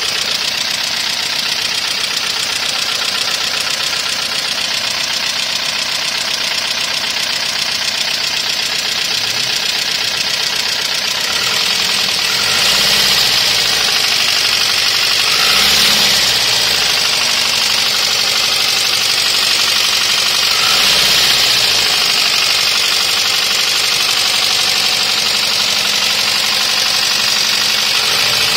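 Toyota 1ZZ-FE four-cylinder engine running with a loud, rapid tapping clatter from the valvetrain, typical of worn valve buckets (tappets) with excess valve lash. The engine speed rises and falls briefly about three times in the second half.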